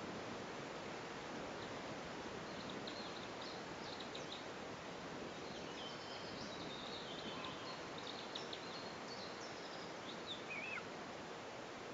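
Steady outdoor noise hiss with birds chirping and twittering, high-pitched, through most of the stretch, and one wavering call near the end.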